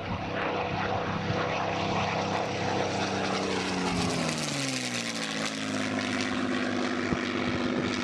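Two-seat Spitfire TR9's Rolls-Royce Merlin V12 and propeller passing overhead: a steady engine drone whose pitch drops about four to five seconds in as the aircraft goes by, then runs on at the lower pitch.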